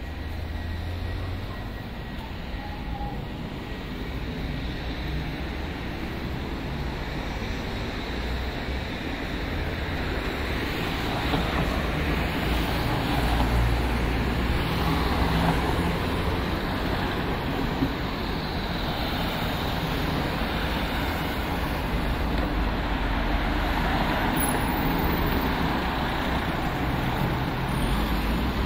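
City road traffic: a continuous wash of passing cars and heavier vehicles, with a low rumble, growing louder about ten seconds in.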